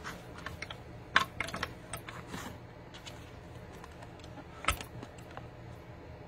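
Light clicks and taps of clear plastic cutting plates and a metal die being handled and lined up at the entry of a hand-cranked die-cutting machine. There is a cluster of clicks about a second in and one sharp click near five seconds.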